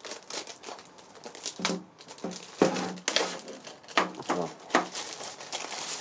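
Clear plastic bag crinkling as it is pulled off an electronic device, in quick irregular crackles.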